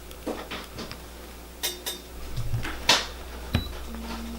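Light plastic clicks and knocks as a small USB mini humidifier is handled and its top screwed on, with a sharper knock about three seconds in.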